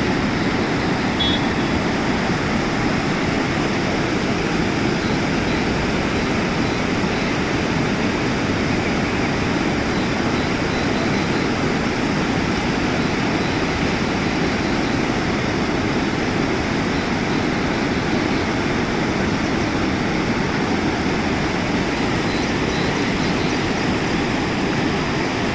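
Monsoon-swollen river rushing steadily, a constant roar of fast-flowing water under strong pressure.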